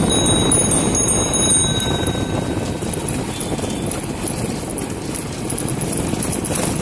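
Steady low rumble of a two-wheeler riding along a street, with wind on the microphone. During the first two seconds a string of short, high-pitched beeps sounds over it.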